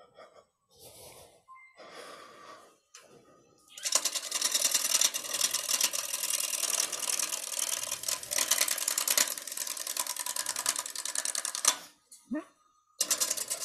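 A bowl gouge cutting a spinning blank of green cedar on a wood lathe. A loud, dense scraping hiss starts about four seconds in. It breaks off for a moment near the end and starts again.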